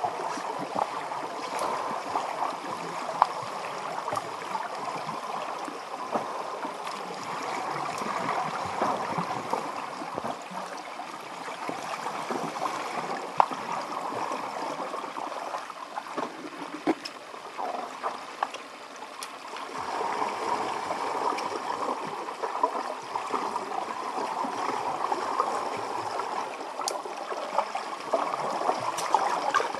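Underwater pool sound picked up by a submerged camera: a steady watery hiss and gurgle, swelling a little about two-thirds of the way through, with scattered small clicks.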